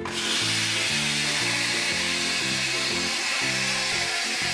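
Hello Kitty toy toaster running with a steady whirring hiss, starting as its lever is pushed down with a toy waffle inside, the sound of the toy toasting. Background music plays along.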